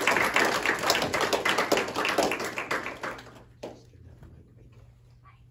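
People clapping, dying away about three seconds in, followed by a few faint knocks.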